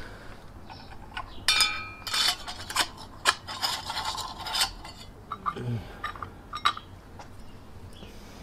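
Brass Trangia-style spirit burners clinking and scraping against their metal pot stands as they are set into them: a series of sharp metallic clinks, one ringing briefly, most of them in the first two thirds.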